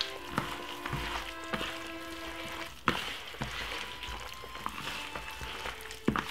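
Gloved hand squishing and rubbing raw chicken pieces through an oily honey marinade in a plastic bowl, with a few sharp knocks, the loudest about three seconds in. Soft background music with held notes plays throughout.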